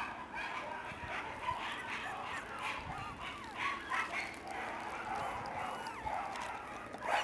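Three-week-old Shiba Inu puppy whimpering and yipping: short high whines that rise and fall in pitch, scattered irregularly.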